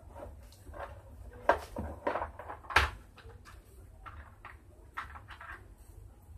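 Clicks and knocks of a green plastic box and other small items being handled and set down on a tiled floor: several short knocks, the two loudest about a second and a half and nearly three seconds in.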